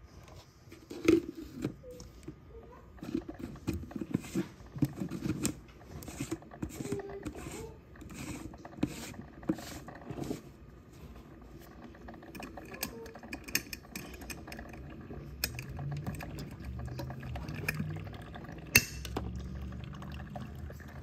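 Mr. Coffee 3-in-1 coffee maker brewing on its cold brew setting: coffee spurts and trickles into the blender pitcher in irregular pulses. A low machine hum joins in about halfway through, and there is one sharp click near the end.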